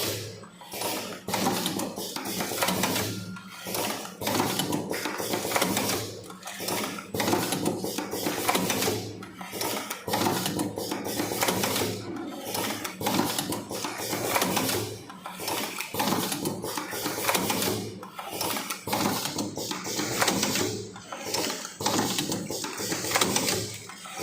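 Automatic vertical cartoning machine running, its box-forming and filling mechanism clattering through a repeating cycle about every second or two.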